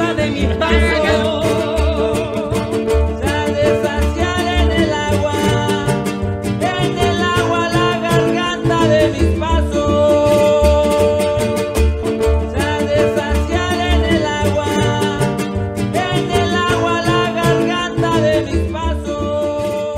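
Latin American music with plucked guitars over a steady, pulsing bass line.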